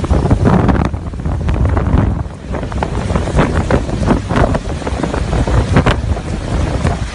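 Hurricane-force wind buffeting the microphone, loud and gusty, with irregular blasts swelling and dropping back.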